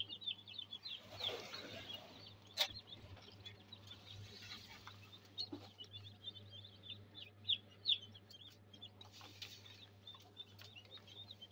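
Hens' and ducks' eggs clicking against each other and the wire incubator tray as they are turned by hand, with sharp knocks about two and a half seconds in and twice near eight seconds. Quick high bird chirps run throughout over a low steady hum.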